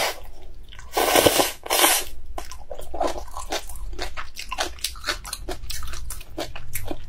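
A person slurping up a mouthful of noodles in two long pulls about a second in, then chewing with many short, wet mouth clicks.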